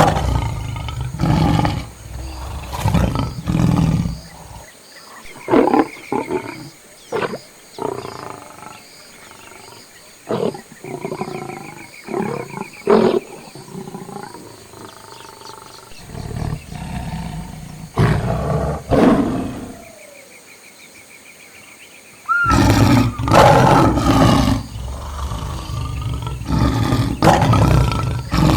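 Lions roaring and grunting in a string of short, loud calls broken by pauses, with a quiet stretch past the middle and a dense run of calls near the end.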